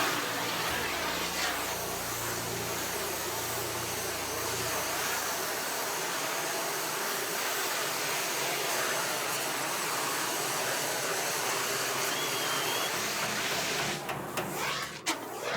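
CO2 fire extinguisher discharging in one long, continuous hiss that stops about a second and a half before the end.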